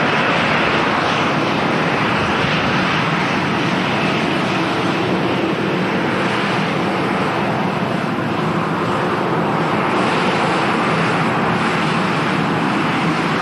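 Emirates Airbus A380's four jet engines at takeoff power, a loud, steady rushing noise that holds level throughout.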